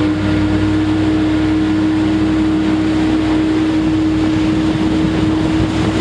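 Motorboat engine running under throttle at a steady pitch, with wind and water rushing past as the boat speeds across open water.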